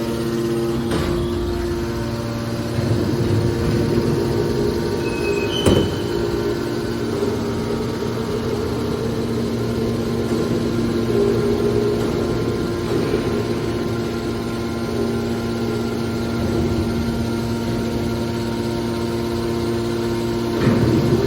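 Scrap steel wire baler running: a steady machine hum with a few held tones over a low rumble. One sharp knock comes about six seconds in.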